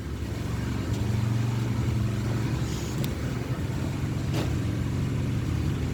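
Small single-cylinder pressure washer engine running steadily on a tank dosed with junk fluids, with a couple of faint clicks partway through.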